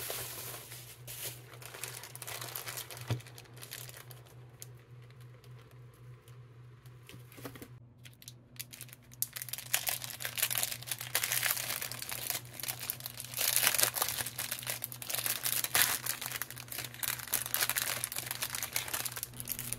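Plastic packaging crinkling as hands unwrap it: bubble wrap being handled, then a clear plastic sticker sleeve being picked open and the stickers slid out. The crinkling is softer for a few seconds, then turns dense and louder about halfway through.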